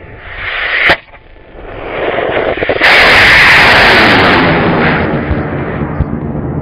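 Solid-propellant high-power model rocket motor firing: a loud, rushing roar that builds and then eases off as the rocket leaves the pad. A single sharp crack comes about a second in.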